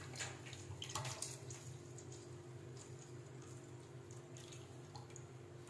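Cooking oil poured from a plastic bottle into an empty metal pot: a faint trickle and splash, loudest in the first second or so, over a low steady hum.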